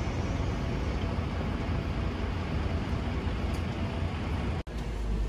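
City street traffic noise: a steady low rumble and hiss of road traffic, which cuts out for an instant about four and a half seconds in.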